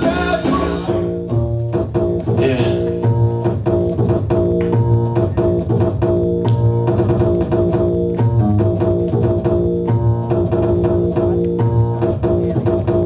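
Dance music playing for a street-dance routine: sustained notes over a deep bass line that pulses in a steady, repeating pattern.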